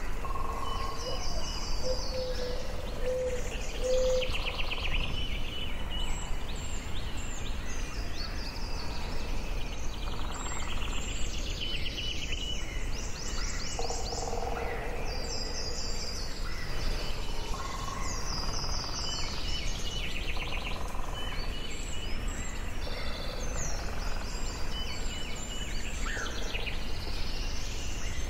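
Forest ambience: several songbirds singing and calling at once, with rapid high trills and chirps overlapping throughout over a steady low rumble. A short run of low whistled notes comes a couple of seconds in and again about halfway.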